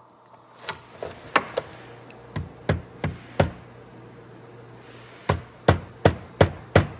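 A hammer tapping a steel pin through the side plates of a motorcycle roller chain held on a bench vise. It makes about a dozen sharp metallic taps in three quick runs, with a pause of nearly two seconds before the last run.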